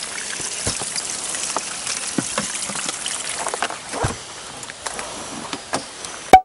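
A black bass being handled on a plastic measuring board on a boat deck: scattered taps and knocks over a steady hiss of light rain, with one sharp knock near the end.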